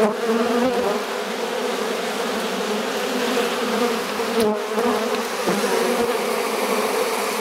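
A dense crowd of honeybees buzzing close to the microphone at a hive entrance: a steady, loud hum with a slightly wavering pitch.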